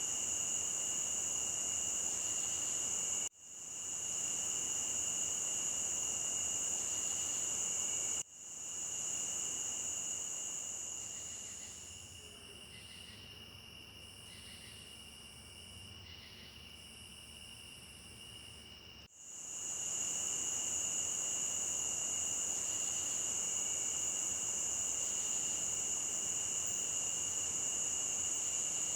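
Night insect chorus of crickets as a stock sound effect: a steady, high-pitched trilling drone that cuts off abruptly three times and restarts. For several seconds in the middle the drone drops away to quieter insect calls pulsing on and off about once a second.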